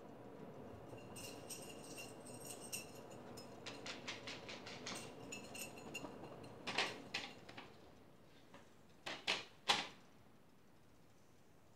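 Faint handling sounds of needlepoint work with thread, needle and canvas: a patter of small clicks and rustles, then a handful of short, louder scraping strokes in the second half.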